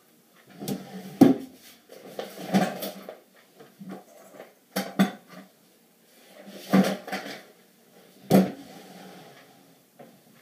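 Things being moved about and knocked together while someone rummages for a brush: a string of sharp knocks and softer rattling clatter, with the loudest knocks about a second in and again near the end.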